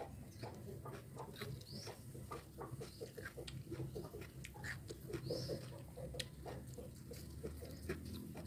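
Close-up chewing and lip-smacking of someone eating, a rapid run of small wet clicks and pops. A few short, high bird chirps sound in the background, about four times.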